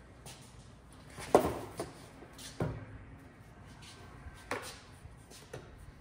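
Hollow plastic knocks and clunks from the parts of a 2000 Chevrolet Camaro's heater/AC box being pulled apart and handled: five or six sharp knocks, the loudest about a second and a half in.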